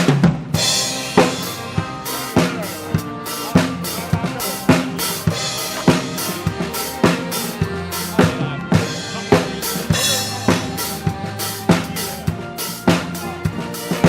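A live band plays dance music: a drum kit keeps a steady beat of kick and snare strokes under sustained melodic notes.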